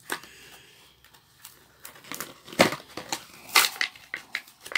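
Hot Wheels blister pack being ripped open by hand: the plastic blister crackling and the cardboard card tearing in irregular sharp crunches, the two loudest about two and a half and three and a half seconds in.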